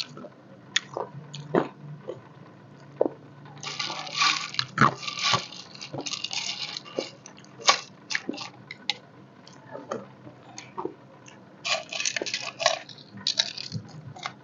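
Ice cubes being bitten and chewed, with sharp cracks and bursts of crunching, the densest about four seconds in and again near the end.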